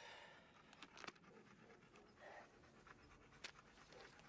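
Near silence: faint background ambience with a few soft clicks.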